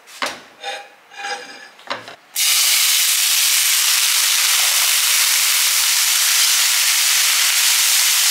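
Hot oil crackling faintly in a stainless steel frying pan, then about two seconds in, beech mushrooms hit the oil and set off a loud, steady sizzle.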